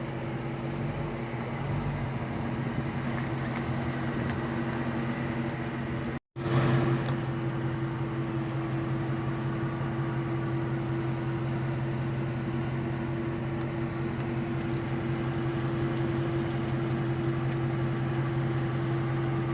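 A car engine running at a steady pitch, with a brief cut to silence about six seconds in.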